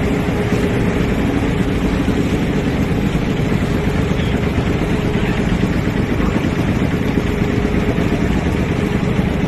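Boat engine running steadily at a constant speed: a loud, even mechanical noise with a constant low hum.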